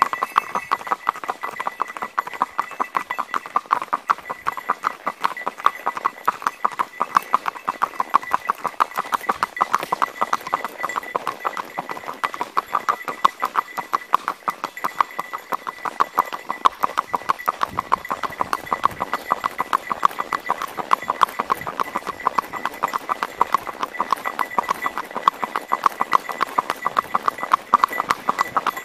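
Hooves of a ridden horse striking an asphalt road in a steady, even clip-clop rhythm.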